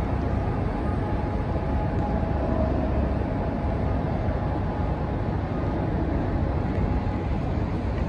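Steady low rumble of heavy port machinery, a grab-type ship unloader crane hoisting a bulldozer, with a faint hum in the first few seconds.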